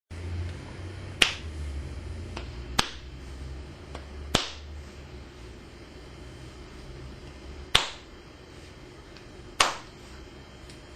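Chiropractic toggle adjustments on the back: five sharp slapping clicks at uneven intervals, one to three seconds apart.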